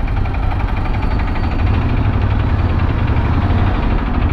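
Ducati Scrambler's air-cooled L-twin engine running steadily at low revs, heard close up with its even, pulsing exhaust note.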